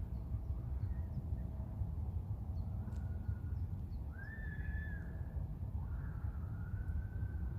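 Bird calls: a few drawn-out, arching calls in the second half, with faint short chirps higher up, over a steady low rumble.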